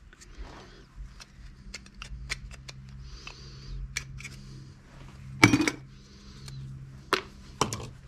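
A screwdriver prying apart a small microwave motor's steel casing: many small metal clicks and scrapes, with a louder metallic clank about five and a half seconds in and two more knocks near the end.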